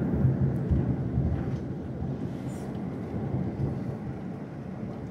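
Rolling thunder, a low rumble that is loud at first and slowly dies away over a few seconds.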